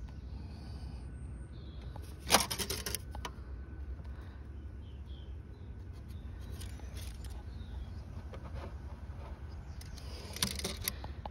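Handling noise: two short bursts of clicking and clattering, the louder about two seconds in and a smaller one near the end, as a steel tape measure and the plastic cat flap frame are moved about, over a steady low hum.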